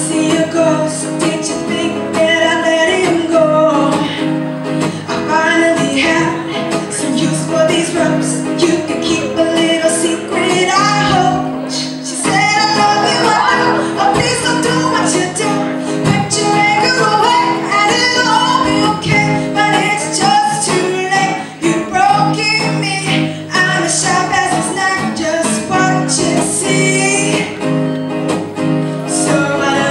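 A woman singing a song live while strumming a steady accompaniment on an acoustic guitar.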